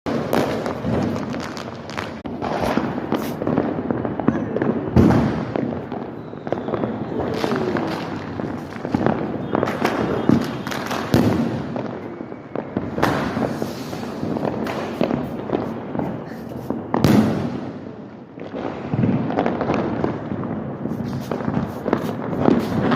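Firecrackers going off one after another: a dense, irregular run of sharp bangs and crackles, with louder blasts now and then.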